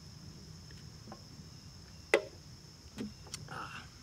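Steady high chirring of insects, with one sharp clink about two seconds in as an aluminium drink can is set down on concrete, followed by a couple of softer knocks.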